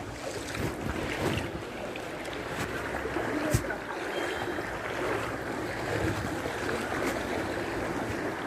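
Floodwater sloshing and swirling as someone moves through it, with wind on the microphone; one sharp click about three and a half seconds in.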